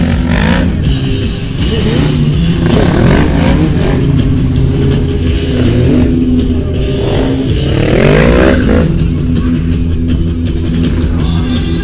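Sport motorcycle engine revving up and down in two surges, about three and eight seconds in, during a stunt run. Loud music plays underneath.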